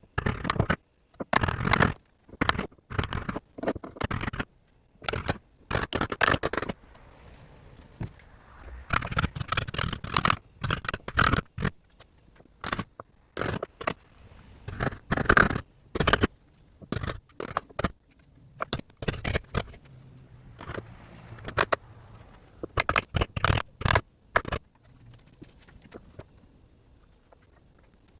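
Wood chisel cutting a hinge recess into a wooden door frame: irregular sharp knocks and short scrapes of the blade paring out wood, coming in clusters with brief pauses.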